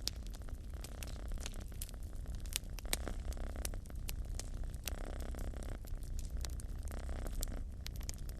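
A domestic cat purring steadily close up, a low rumble that swells and eases with each breath every couple of seconds, over the frequent sharp crackles and pops of a wood fire.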